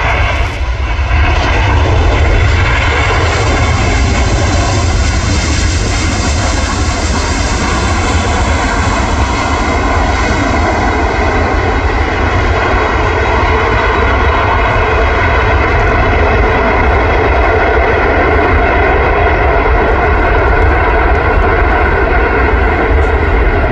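Airbus A380's four jet engines running loudly as the airliner touches down and rolls out on the runway: a steady, dense roar with several steady tones in it, growing a little louder about two seconds in.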